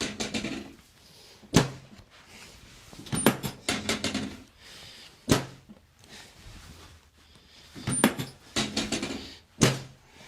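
Sharp knocks and thuds during a chiropractic adjustment on a treatment table: three loud, sudden knocks about four seconds apart, with bursts of rapid tapping between them.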